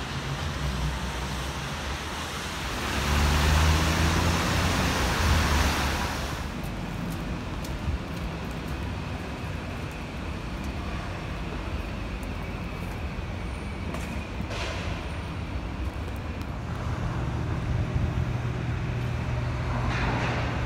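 Traffic on wet city streets under a steady hiss. A vehicle passes with loud tyre hiss and engine hum about three seconds in, and another vehicle's engine hums steadily near the end.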